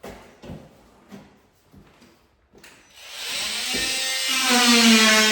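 A few light knocks, then a handheld power tool starts about three seconds in. Its motor whine climbs a little and runs on loud and steady as it begins cutting out pieces of the old framing.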